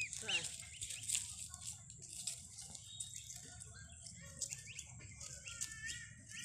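Goslings peeping: a few short, high-pitched peeps, most of them in the second half, with light clicks and rustling among dry leaves as they forage.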